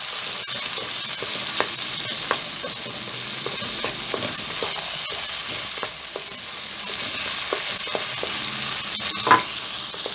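Boiled chickpeas sizzling in hot oil and onion-tomato masala in a wok, being fried and stirred with a wooden spatula that scrapes and taps against the pan. One louder knock of the spatula comes near the end.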